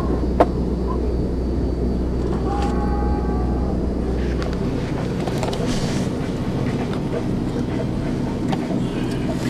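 Steady low rumble of a tour bus on the road, heard from inside near the bunks, with one sharp click about half a second in.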